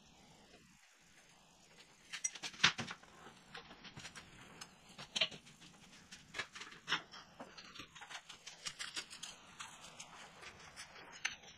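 Scattered light clicks and taps, like small hard objects being handled, starting about two seconds in after a quiet start.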